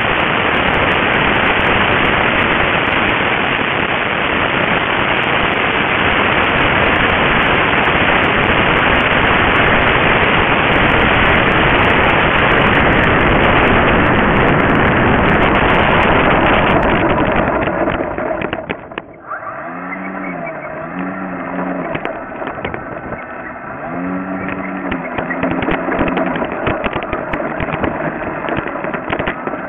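Loud, steady rush of wind and motor noise picked up by a small camera riding on a radio-controlled model airplane as it flies low to land. About two-thirds of the way in the rush drops away suddenly, leaving quieter rattling and a couple of short low tones as the plane rolls on the grass.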